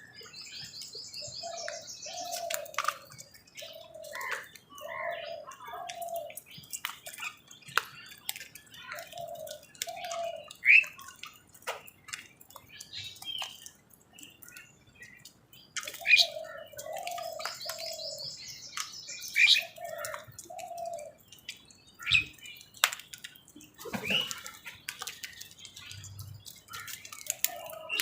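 Birds calling: buzzy high chirps and runs of short low notes, among many sharp clicks and wing flutters. The same run of calls comes twice.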